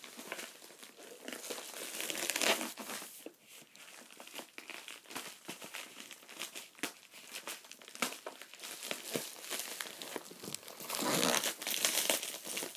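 Shipping packaging being handled and torn open by hand: irregular crinkling and crumpling, louder about two seconds in and again near the end.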